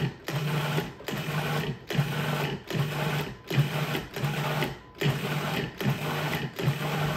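Electric food processor pulsed over and over, its motor running in short bursts with brief stops between, a little more than one pulse a second, chopping and mixing a batch of pesto.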